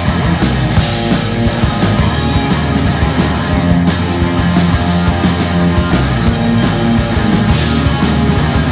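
Rock trio playing live: distorted semi-hollow electric guitar, bass and drum kit, with cymbal crashes about a second in and again near the end.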